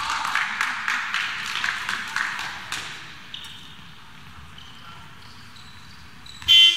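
Basketball game in a large hall: crowd noise and voices with many sharp bounces and squeaks for the first three seconds, then quieter. Near the end comes a short, very loud referee's whistle blast.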